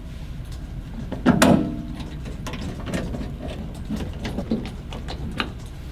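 Plastic front cover of a gas boiler being fitted and screwed down with a hand screwdriver. There is a loud knock about a second in, then scattered light clicks and scrapes.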